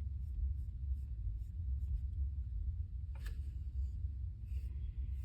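Pencil hatching on sketchbook paper: faint, quick scratching strokes, with one louder stroke about three seconds in, over a steady low hum.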